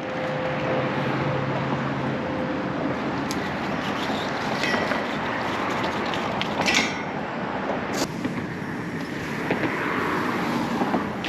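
Steady wash of road traffic noise, with a few short clicks and knocks scattered through it.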